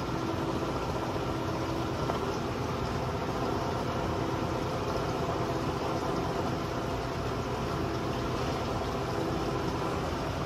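Steady machine hum with several held tones over a constant hiss, unchanging throughout.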